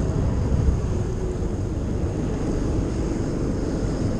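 RNLI all-weather lifeboat under way at speed: a steady low drone of its engines with rushing wind and sea noise.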